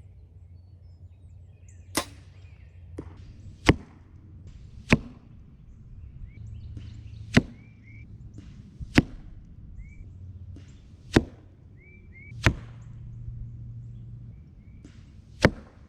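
A PSE Mach 33 compound bow being shot repeatedly: about eight sharp snaps of the string and arrow release, a second or two apart, with fainter clicks between them. Low wind rumble and a few short bird chirps sit underneath.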